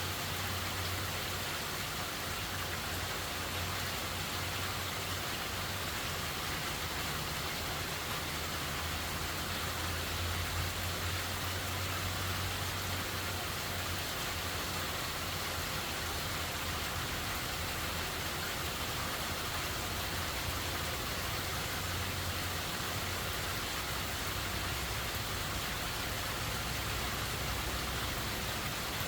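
Steady rain falling, with a low steady hum underneath.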